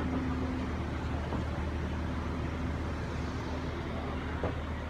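Cog railway railcar's engine running steadily with a low hum and a fainter held tone, with a small click about four and a half seconds in.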